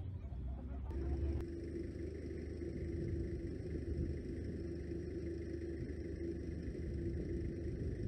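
An engine idling steadily: a low rumble with a steady hum over it, which turns steadier about a second in.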